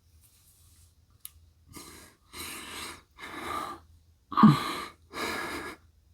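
A person breathing heavily and audibly, about five long breaths in a row. The fourth breath is the loudest and carries a short voiced catch.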